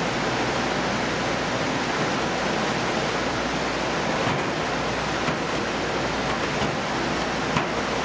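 Steady, even roar of fish-processing machinery and conveyors, with a few faint knocks.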